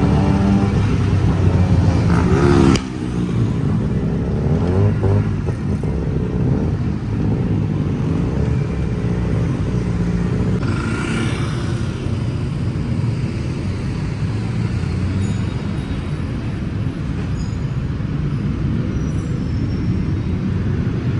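Tuk-tuk engine running and revving in city traffic, heard from inside the open cab, with a brief rise in pitch that cuts off suddenly about three seconds in. A motorcycle passes alongside about ten seconds in.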